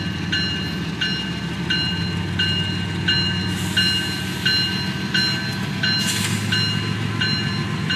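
A Canadian National freight train rolling slowly past with a low, steady rumble, while a railroad bell rings evenly about one and a half strokes a second.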